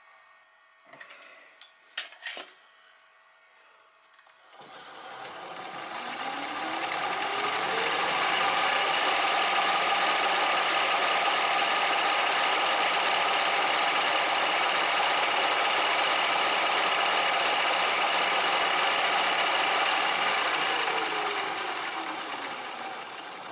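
Bridgeport milling machine: a few light clicks, then about four seconds in the spindle motor spins up with a rising whine. It runs steadily while the cutter machines the weld-built-up jaw of a Lovejoy coupler back to a flat face, then winds down with a falling whine near the end.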